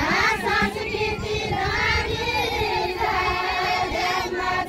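Women singing a Nepali deuda folk song, high voices holding and bending long notes.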